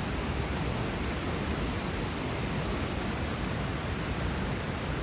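Waterfall with a steady rush of falling water, unchanging throughout.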